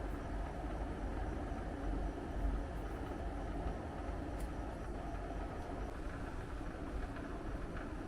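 Split air conditioner indoor unit running: a steady fan-and-airflow noise over a low hum.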